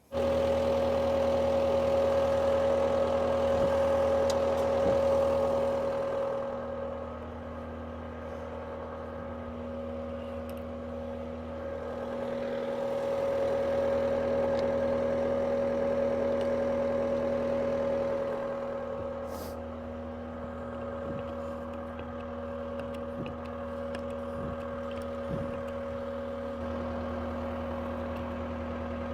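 Skid steer's diesel engine running steadily, starting abruptly and growing louder and quieter in slow swells of several seconds.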